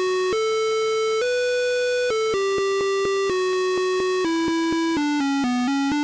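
PC speaker beeping out a one-note-at-a-time melody in a buzzy square-wave tone, driven by a hobby operating system. Each note is held about half a second, with a click at every note change, and the notes come quicker near the end.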